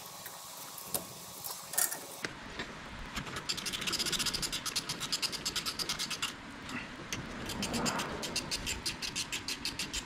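Hand ratchet clicking in long, rapid runs, starting about two seconds in, as the 10 mm bolts holding a rear brake caliper are run in.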